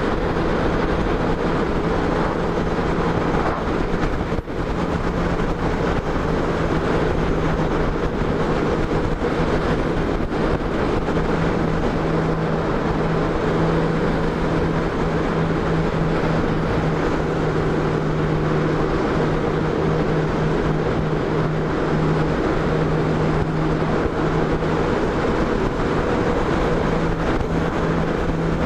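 Touring motorcycle cruising at steady speed, its engine holding a constant low hum, with wind and road noise rushing over the bike-mounted microphone. There is a brief dip in the sound about four seconds in.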